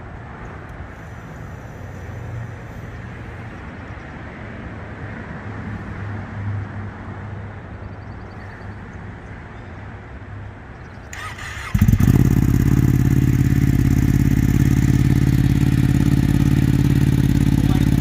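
Ducati Streetfighter V4S's V4 engine started about two-thirds of the way in: a short crank, then it catches and idles steadily and loudly. Before the start there is only a low, quiet background hum.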